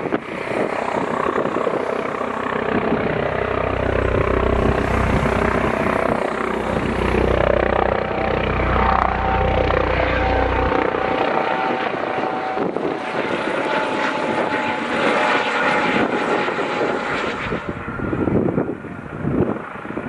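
Eurocopter Dauphin helicopter's turbines and rotor running as it flies past low. Strong wind rumbles on the microphone through the first half. A steady whine runs through the middle.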